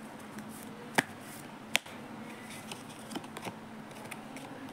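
Tarot cards being handled as a card is drawn from the deck and turned over: two sharp clicks about a second in and under a second apart, then a few faint card ticks and rustles.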